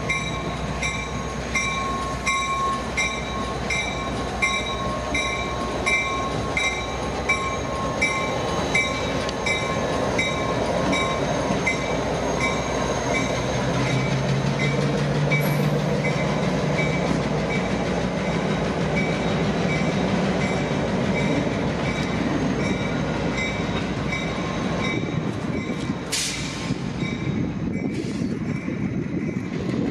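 A pair of Caltrain diesel locomotives running light past a station, their engines rumbling low, with the locomotive bell ringing about twice a second and fading away through the first half. Near the end there is a brief high squeal, likely from the wheels on the rails.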